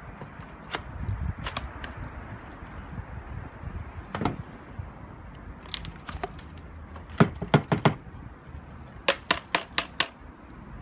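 Sharp knocks and clicks from handling the Hoover Curve vacuum's dust canister: a few scattered taps, then two quick runs of four or five loud knocks, the runs about two seconds apart.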